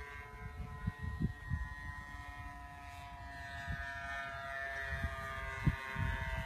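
Radio-controlled Tucano model plane flying past: a steady motor-and-propeller whine whose pitch falls slowly as it passes.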